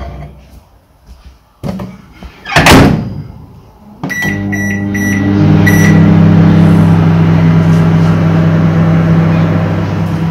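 Contempo microwave oven: the door shuts with a thump, then a few short keypad beeps about 4 s in as the timer is set. The oven then starts running with a loud, steady hum.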